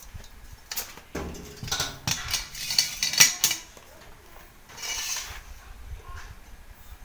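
Metal clinking and clattering as a homemade slingshot and its gear are handled: a run of sharp knocks and rattles over a couple of seconds, then a short rustle about five seconds in.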